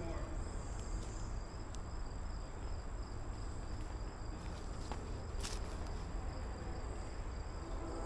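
Crickets chirping in a steady, high-pitched chorus over a low rumble.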